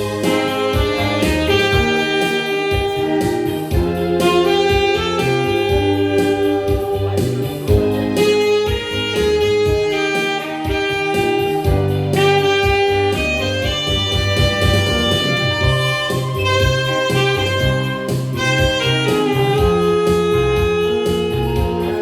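Saxophone playing a melody over a backing accompaniment with bass and keyboard.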